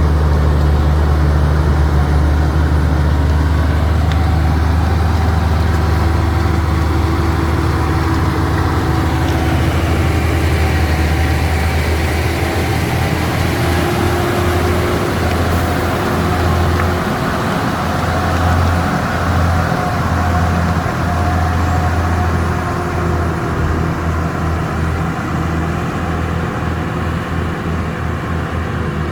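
Heavy diesel engine of earthmoving machinery running with a steady low drone, which turns uneven from about halfway through.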